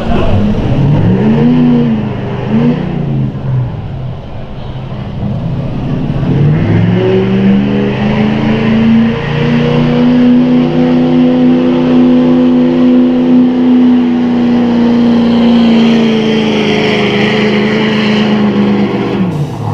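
Street diesel pickup truck's engine during a pull: it revs twice in short blips, then climbs in pitch and holds high revs steadily for about nine seconds, dropping off near the end.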